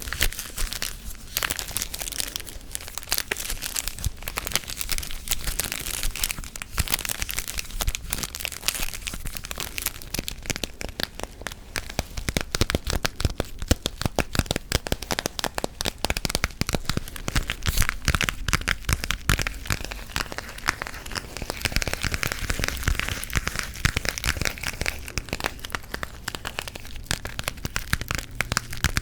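Close-miked ASMR gum chewing and tapping: a dense, unbroken run of crackling clicks.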